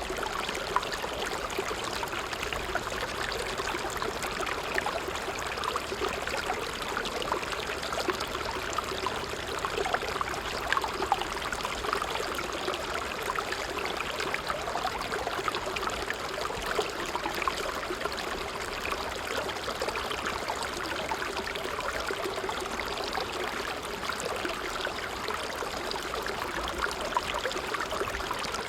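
Creek water flowing steadily, a constant babbling rush dotted with small splashes and trickles.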